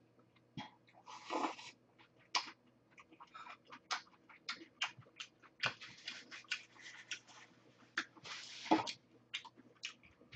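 Close-up eating sounds of a bowl of kong-guksu (noodles in cold soy-milk broth): slurping noodles and broth, with many short wet clicks and smacks of chewing. Two longer slurps, one about a second and a half in and the loudest near the end.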